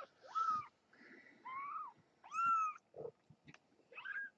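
Young kittens mewing: about four short, high-pitched cries, each rising and then falling in pitch, as the litter crawls to its mother to nurse.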